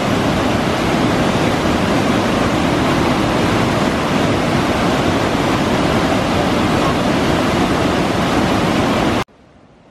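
Whitewater of the Russian River Falls rushing, loud and steady, cut off suddenly near the end.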